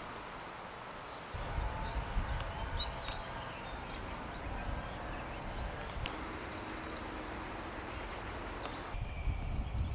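Outdoor ambience: wind rumbling on the microphone with birds calling, a few short high chirps and, about six seconds in, a high rapid trill lasting about a second.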